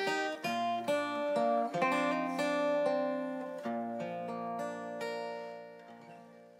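Steel-string acoustic guitar playing the closing bars of a folk song: a run of strummed and picked chords, then a final chord about two-thirds in left ringing until it fades out.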